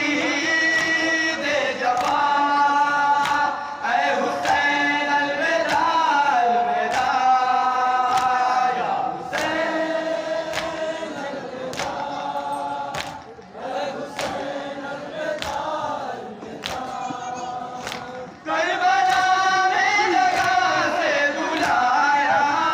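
A group of men chanting a noha, a Shia mourning lament, in unison. Sharp chest-beating strikes (matam) keep time about once a second. The singing dips quieter in the middle, then the full group comes back in loudly about three-quarters through.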